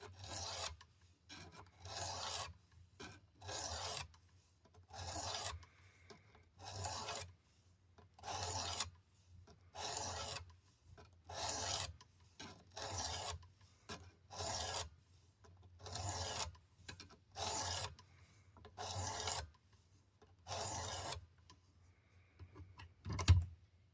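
Sharpening stone of a Work Sharp Precision Adjust guided sharpener rasping along an OTF knife blade in even passes, about one every one and a half seconds, setting the edge bevel. A sharp knock near the end.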